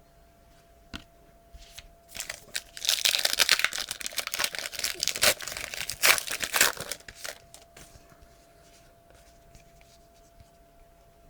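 A trading-card pack's wrapper being torn open and crinkled by hand, a burst of crackling and ripping that runs for about five seconds, starting about two seconds in.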